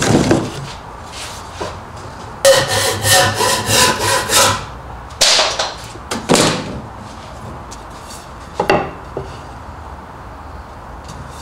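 Hand saw cutting a wooden broomstick to length: a quick run of about eight strokes, roughly four a second, starting about two and a half seconds in, then two longer scraping strokes. Light knocks of wood come at the start and again about three quarters of the way through.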